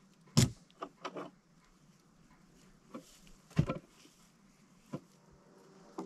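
A log chain and its hook clanking and rattling as they are handled on a log sleigh: a handful of sharp metal knocks, the loudest about half a second in and again around three and a half seconds.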